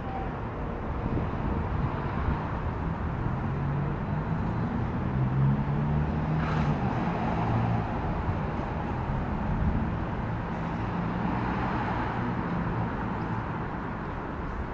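Urban traffic noise with a low, wavering engine hum, swelling a little midway and again near the end.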